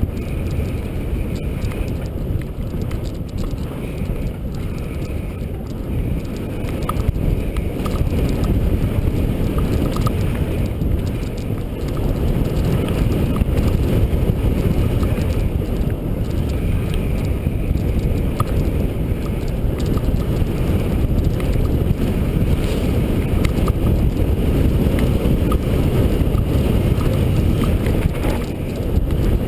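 Mountain bike descending a dirt trail: wind buffeting the microphone over the rumble of the tyres on the ground, with scattered small ticks and rattles. It gets louder about twelve seconds in.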